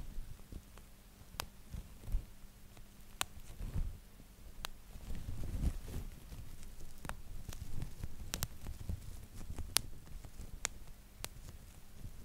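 Bubble wrap squeezed and twisted by hand: sharp pops of single bubbles bursting, about a dozen at irregular intervals, over a low rustling of the plastic sheet.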